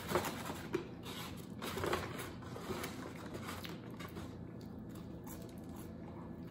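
Faint rustling and scraping of fingers picking fries out of a paper-lined takeout box, a few short rustles in the first few seconds and quieter handling after.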